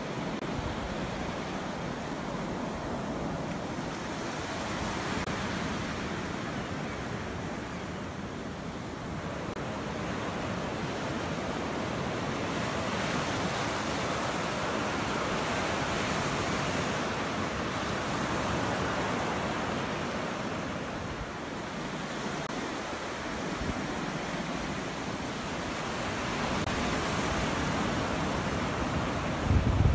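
Small waves breaking and washing up a sandy beach: a steady surf hiss that swells and eases every few seconds.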